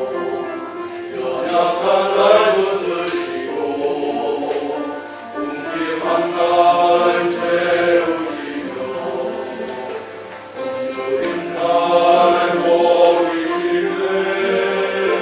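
Small male vocal ensemble singing a hymn in several-part harmony. The phrases are sustained, with short breaks for breath about five and ten seconds in.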